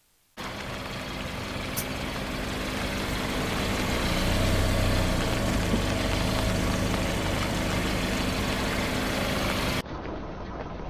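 Car engine running steadily, growing louder over the first few seconds, with a sharp click about two seconds in. Near the end it cuts suddenly to a quieter engine sound.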